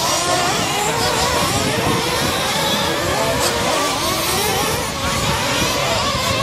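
Several radio-controlled race trucks running on a dirt off-road track. Their small motors buzz at a high pitch that keeps rising and falling as the trucks accelerate and brake, several of them overlapping at once.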